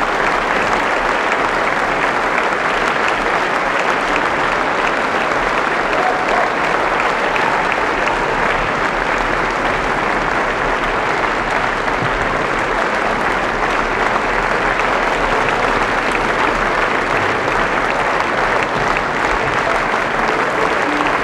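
Theatre audience applauding, steady and unbroken.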